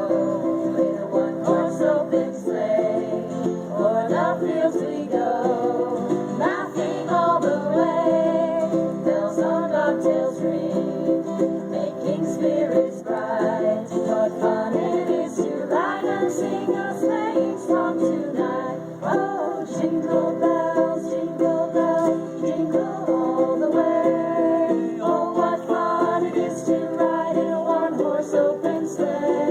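Live acoustic music on plucked string instruments, playing a tune without a break.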